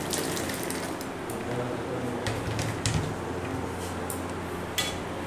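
Small lasoora fruits tipped from a plastic bowl into a steel pot of boiling water: a steady bubbling hiss from the boil, with a few sharp knocks of the bowl against the pot.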